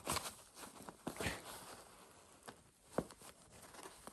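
A few light clicks and knocks with some rustling, the sharpest click about three seconds in: metal sliding-door trolley rollers being handled.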